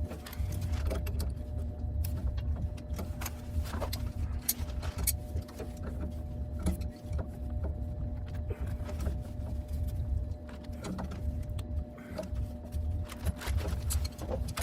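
A motor running steadily with a low hum, with scattered light clicks and knocks throughout.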